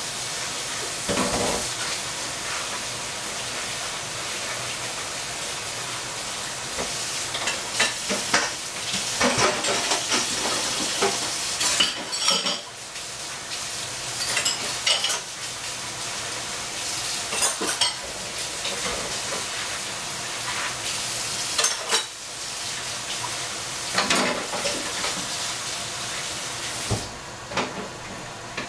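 Steady sizzling hiss from a covered pan of shrimp and vegetables cooking on the stove, with dishes and utensils clattering and scraping at intervals. The hiss drops away near the end.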